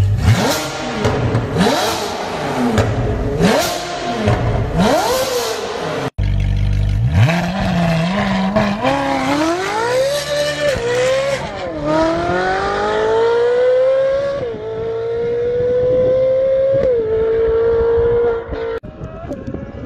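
Ferrari 458 Speciale's naturally aspirated 4.5-litre V8 through an Fi Exhaust valvetronic catback with catless downpipes. It is first revved in place in about five sharp blips. After a cut it pulls hard, climbing in pitch through several quick upshifts, and turns quieter near the end.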